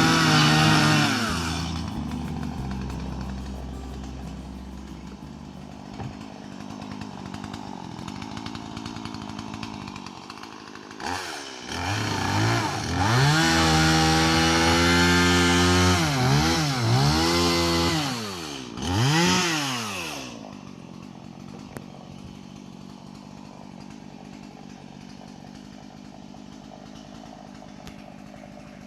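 Chainsaw running. It drops from high revs to idle near the start, is revved up and down several times in the middle, then settles back to a low idle.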